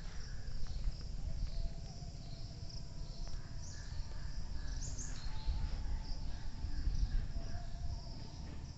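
Insects chirping steadily in a high band, over a low rumble.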